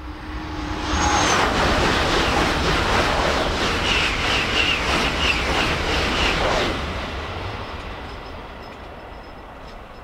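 Shinkansen bullet train passing at high speed: a rush of wind and rail noise builds about a second in and holds for about six seconds. Near the end of that stretch it pulses evenly, about three times a second, then dies away over the last few seconds.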